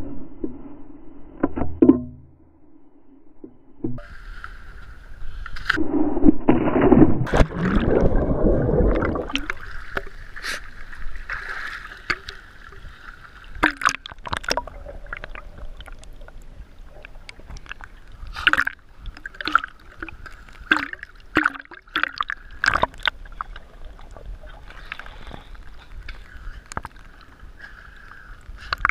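Pool water sloshing, splashing and gurgling around a camera at the waterline that dips under the surface, with a yellow Labrador swimming close by. The heaviest splashing and rumbling comes about six to nine seconds in, then many sharp small slaps and splashes over a steady hiss.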